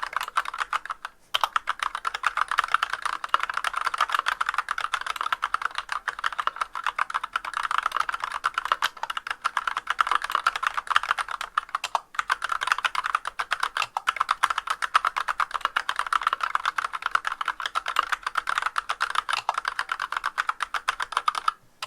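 Fast, continuous typing on a Massdrop CTRL High-Profile mechanical keyboard with Artbox Black linear switches, in stock form with unlubricated stabilizers and no sound dampening. Rapid keystrokes with brief pauses about a second in and near twelve seconds.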